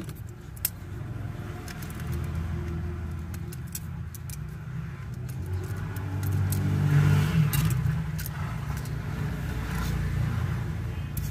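A motor vehicle's engine rumbling as it passes, low and swelling to a peak about two-thirds of the way through, then easing. A few small sharp clicks sound over it.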